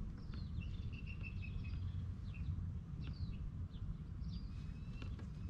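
Small birds chirping: scattered short high calls and a brief run of quick repeated notes, over a steady low rumble.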